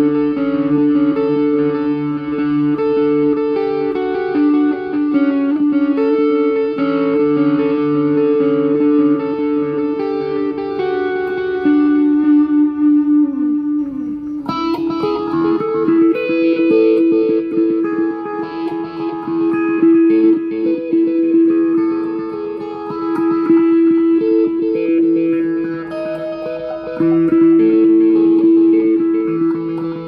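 Electric guitar played through an effects pedalboard. For about the first half it runs through overdrive with a dotted-eighth-note digital delay repeating each note. About halfway through, after a brief pitch dip, it switches to a clean tone with phaser and the same dotted-eighth delay.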